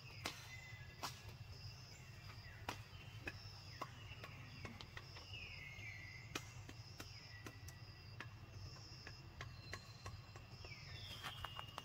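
Outdoor wildlife ambience: repeated short high chirps and several falling whistled calls over a steady low rumble, with scattered sharp clicks.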